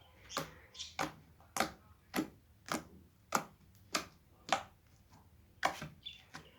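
Slime being squeezed and pressed in the hands, making sharp pops and clicks at an even pace, roughly one every half to two thirds of a second, with a brief pause shortly before the end.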